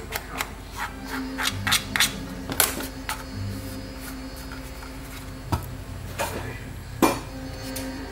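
A quick run of sharp clicks, about three a second, for the first three seconds, then a few single clicks further apart, the loudest near the end, over a low steady hum.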